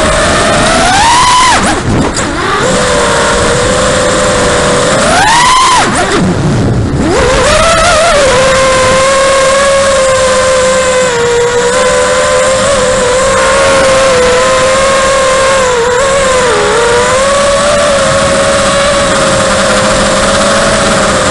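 Brushless motors and HQ 5040 tri-blade propellers of a DroneWolf Pup 5-inch FPV quadcopter, heard from on board, whining at a steady cruising pitch. The whine sweeps sharply up twice, about a second and a half in and again about five seconds in, as the throttle is punched, then drops away briefly as the throttle is cut before settling back to cruise.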